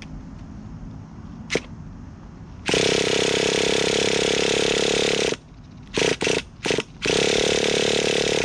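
Traxxas Nitro Rustler's nitro engine being cranked over by its starter in bursts: one long spin of about three seconds, three quick short ones, then another long spin. Each burst starts and stops sharply, a sign the engine is not yet catching and running on its own. There is a single click before the first burst.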